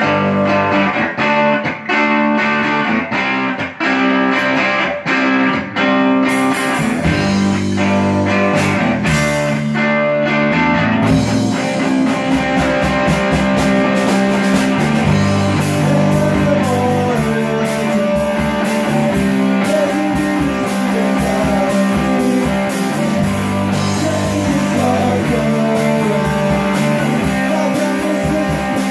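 Rock band playing live: electric guitar and bass guitar with drums, and a voice singing. The first few seconds are sharp stop-start hits, then the band plays on continuously.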